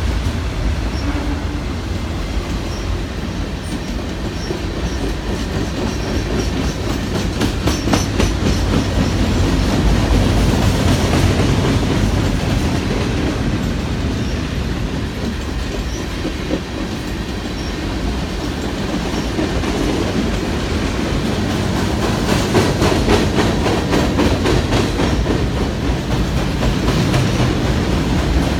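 Freight train cars rolling past with a steady rumble, their wheels clicking rapidly over rail joints, in spells about eight seconds in and again late on.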